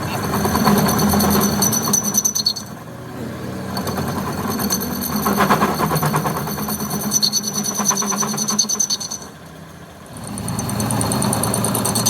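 A workshop power tool running with a fast, even rattling pulse and a high whine, in three stretches that drop off briefly about three seconds in and again near ten seconds.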